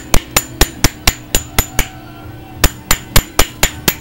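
Hammer tapping a steel tubular driver over a Corvair transaxle's input shaft, seating the new split ring in the bell housing: sharp metallic taps about four a second, pausing briefly about halfway through, then resuming.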